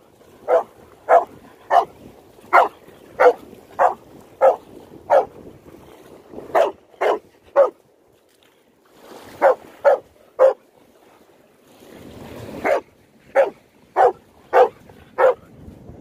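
A dog barking repeatedly in runs of short barks, about two a second: a run of eight, two runs of three, then five more near the end.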